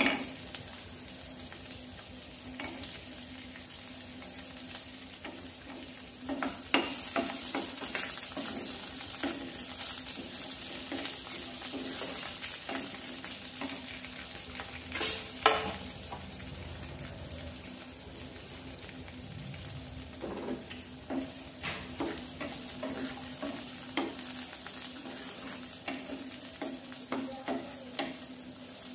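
Onion pieces and whole spices sizzling in hot cooking oil in a frying pan, with a wooden spatula scraping and knocking against the pan as they are stirred. The loudest knock comes about halfway through.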